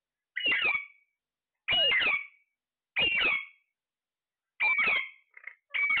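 Ring-necked parakeet calling: a series of loud calls, each about half a second long, five of them at intervals of a little over a second, with a short extra call just before the last.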